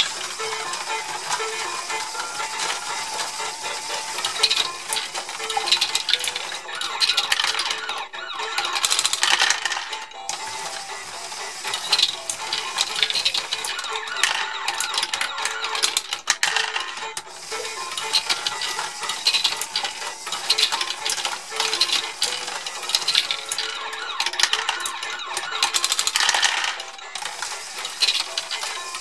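Lego Great Ball Contraption module running: small plastic balls clatter and rattle with many quick clicks as a chain conveyor lifts them and they drop through a pegged pachinko board.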